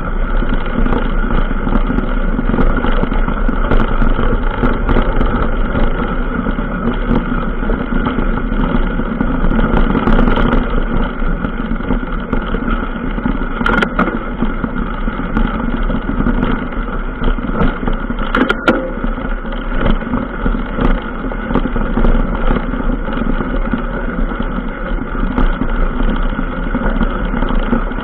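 Steady rumble and rattle of a ride along a dirt trail, picked up by a camera mounted on the vehicle. There are two sharp knocks about halfway through.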